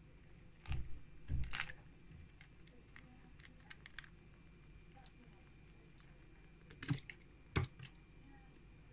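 Irregular clicks and knocks from handling a plastic bottle with a flip-top cap while pouring vinegar from it into a plastic tub over a rusty axe head. The louder knocks come about a second in and again near the end.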